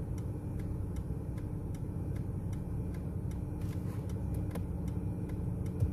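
Car's turn-signal indicator ticking steadily for a right turn, over the low hum of the engine idling while the car waits at a red light.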